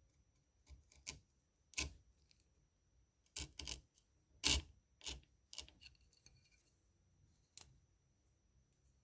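A freshly sharpened chisel paring wood: a series of about nine short, crisp slicing cuts at irregular spacing, the loudest about four and a half seconds in.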